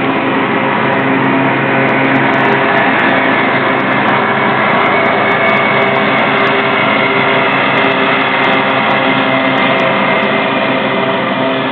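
Steady hum of running machinery: several even low tones over a broad rush. It holds level with no clear change.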